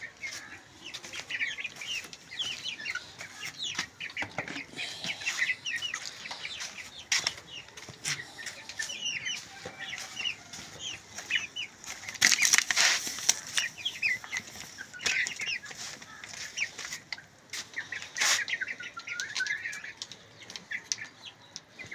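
Chickens and chicks feeding: many short, high peeps with some clucking, and bursts of wing flapping, the loudest about twelve seconds in.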